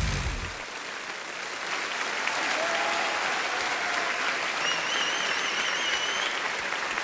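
Large crowd applauding as the last bass note of a live band dies away in the first half second. A high wavering tone sounds over the clapping for a couple of seconds past the middle.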